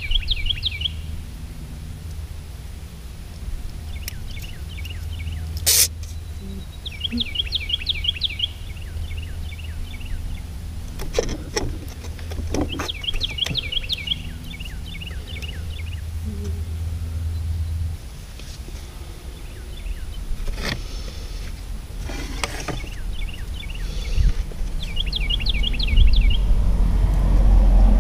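A songbird repeats a short, rapid trilled phrase every few seconds over a steady low hum, which cuts off about two-thirds of the way through. A few sharp clicks sound in between, and a vehicle rumble builds near the end.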